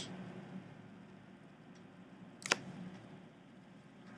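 Quiet room tone with a faint steady hum, broken by a single sharp computer click about two and a half seconds in.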